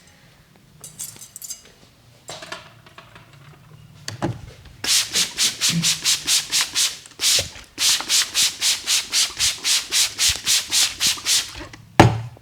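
Vigorous head massage: rapid rubbing strokes on hair and scalp, about four or five a second, in two long runs with a short break. A sharp knock near the end.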